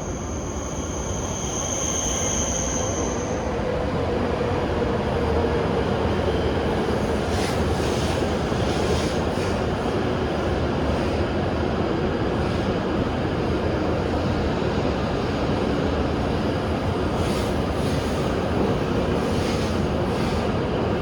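Hokuriku Shinkansen train moving along the station platform: steady running noise that builds over the first few seconds, with a thin high squeal near the start.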